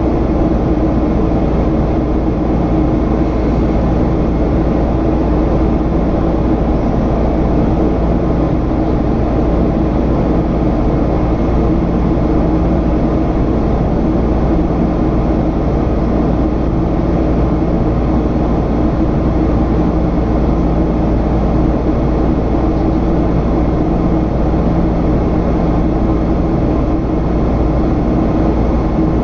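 Boeing 767's General Electric CF6 turbofan engines running in flight: a steady rush of engine and air noise with a constant low hum.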